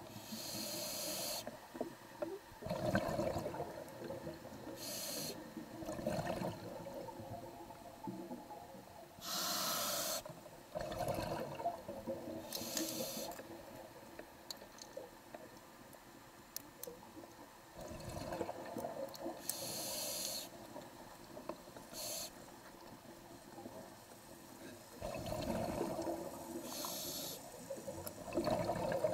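Scuba diver breathing through a demand regulator underwater: hissing inhalations alternating with rumbling, bubbling exhalations, one breath every few seconds.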